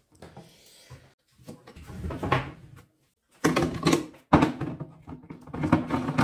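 The hard plastic tank of a backpack sprayer being handled: irregular knocks and scrapes of plastic, the sharpest about three and a half to five seconds in. Near the end its black screw cap is set on the filler neck and turned down.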